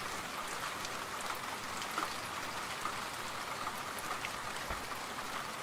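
Steady rain falling, an even patter with a few scattered louder drops.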